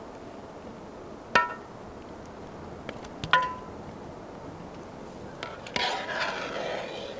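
A metal strainer clanking twice against the rim of an aluminium colander basin, each strike ringing briefly, then a longer rattling clatter near the end as boiled chicken pieces are tipped in.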